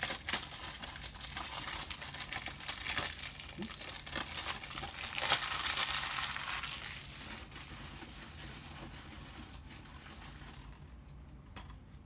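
Plastic shrink-wrap being torn and crinkled off a DVD case, loudest about five to six seconds in, then dying down to faint handling noises.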